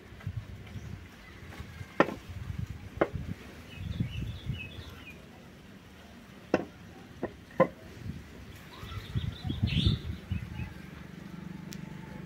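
Solid teak door pull handle being handled: about five sharp wooden knocks and taps, with low rumbling handling noise in between.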